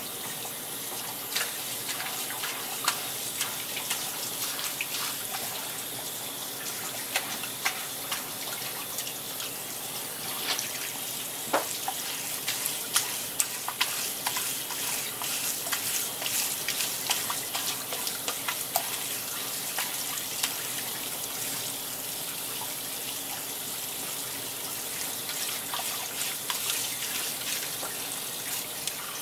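Tap water running steadily from a hose faucet and splashing over a red sea bream and a wooden cutting board as the fish is rinsed by hand, with many short taps and splashes as the hands and knife move in the stream.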